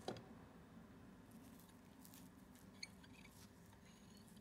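Near silence: a faint steady low hum, with one soft knock at the very start and a few faint small clicks and scratches in the middle, the sound of the steel clamp screw being handled in gloved hands.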